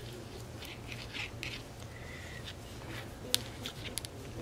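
Metal knitting needles clicking and sliding against each other, with soft rustles of wool yarn as stitches are purled, in a quick irregular rhythm. One sharp click a little past three seconds is the loudest sound. A steady low hum runs underneath.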